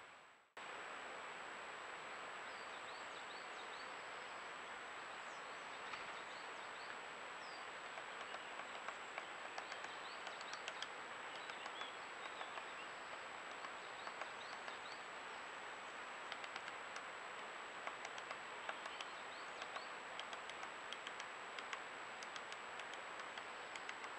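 Woodpecker on a pine trunk tapping at the bark: irregular light taps, several a second through the second half, with a few short high bird chirps early on. Underneath are a trail camera's steady hiss and faint high electronic whine.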